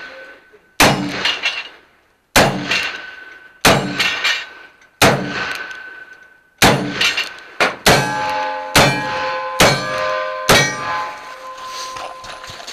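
Black-powder 1851 Navy revolvers fired about nine times, a shot every second or so and quickening near the end. Each shot is followed by steel targets clanging and ringing, and the ringing hangs on after the last shot.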